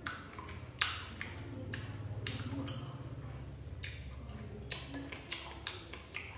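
Close-miked eating sounds of a mouthful of boiled pork being chewed: a string of irregular sharp, wet mouth clicks and smacks over a low steady hum.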